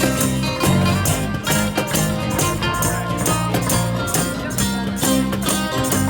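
Live acoustic band playing an instrumental passage: guitar strumming with sustained low notes over a steady beat.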